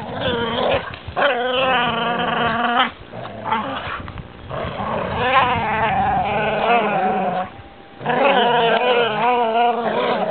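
Vizsla dogs growling in long, wavering, fairly high-pitched grumbles, one after another with short breaks between them.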